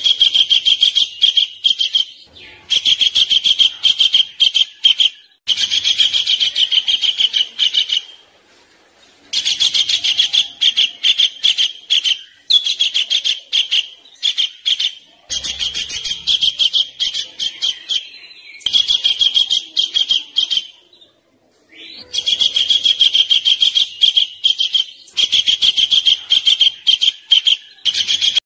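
A small songbird singing a high-pitched, rapid rattling trill of repeated notes, in bursts of two to three seconds separated by short pauses.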